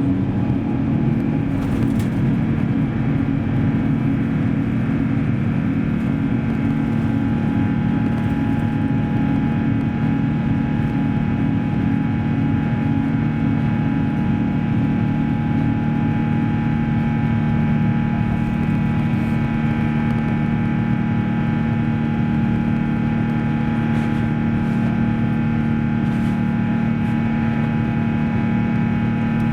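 Airbus A350's Rolls-Royce Trent XWB turbofan engines heard from inside the cabin: a steady, loud drone with several steady whining tones layered over it.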